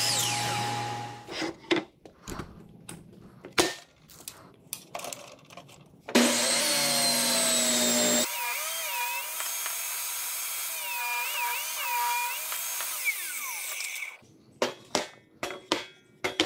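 A DeWalt miter saw runs and stops about a second in, followed by scattered knocks of lumber being handled. About six seconds in, a Skilsaw table saw starts and rips a treated-pine 2x6 lengthwise, its pitch wavering as the board is fed through, for about eight seconds before it stops. More wooden knocks follow near the end.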